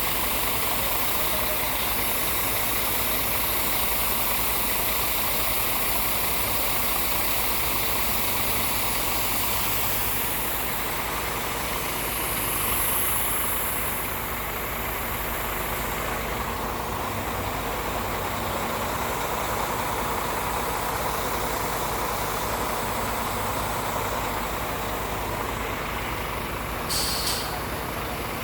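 Heavy diesel engine running steadily, with a short hiss about a second before the end.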